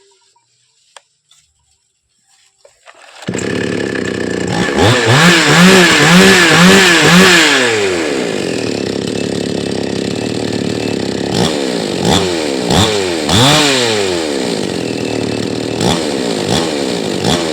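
Keil 62cc two-stroke chainsaw engine bursts into life about three seconds in. It is revved up and down several times, then settles to a steady run with a few short throttle blips.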